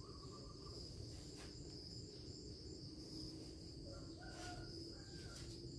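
Faint, steady insect chirring, a continuous high buzz with a pulsing higher trill above it, over a low background rumble with a few light handling taps.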